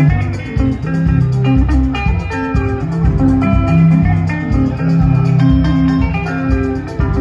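Live band playing sungura-style music: interlocking electric guitar lines over a bass guitar and drums, with no singing.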